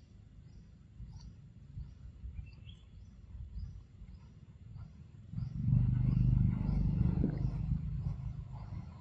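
A high insect chirp repeating about twice a second over low outdoor rumble. From about five seconds in, a much louder low rumble swells up and stays.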